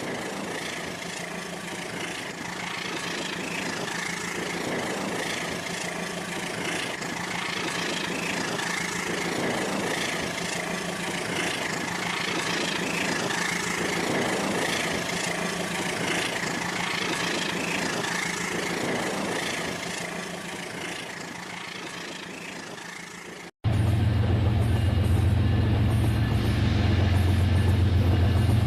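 Battery-powered Rail King toy train running on its plastic track, a steady small-motor whir with faint repeating rattle from the wheels. Near the end the sound cuts off abruptly and a louder, deeper hum takes over.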